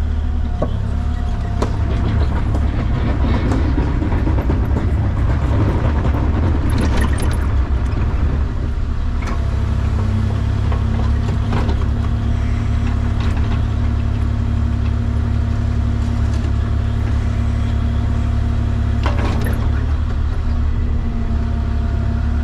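Diesel engine of a piece of digging equipment running steadily, busier and noisier for the first several seconds and then settling into an even drone.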